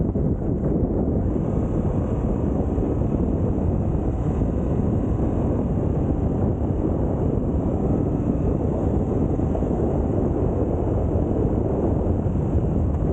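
Steady wind buffeting the microphone: a loud, even rumble with no breaks.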